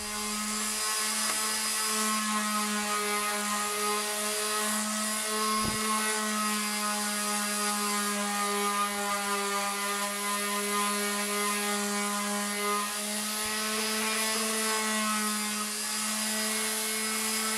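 Electric palm sander running steadily against a board's cut edge, a continuous even hum, with one short knock about six seconds in.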